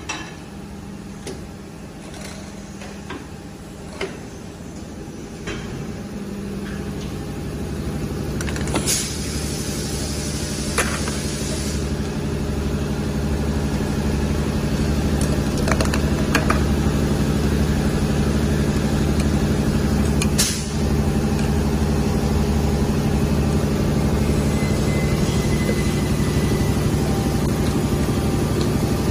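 Steady mechanical hum of a PET preform injection moulding machine running, growing louder over the first half, with a few sharp clicks and knocks scattered through.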